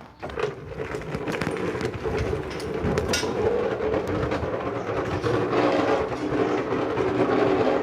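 Bicycle spokes slapping a one-litre bottle fixed behind the frame as the bike is ridden: a fast, motor-like clattering rattle that grows louder over the first couple of seconds as the bike picks up speed, then holds steady.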